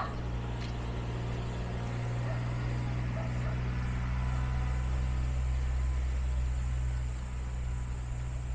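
A vehicle engine running steadily with a low drone, with one short click at the very start.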